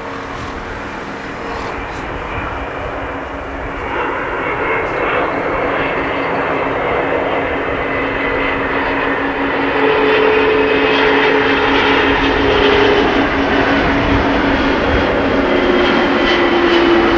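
Boeing 777-200 airliner on final approach for landing, its twin jet engines running with a steady whine over a broad rush of noise that grows louder as it comes in low. Near the end the pitch of the whine drops slightly.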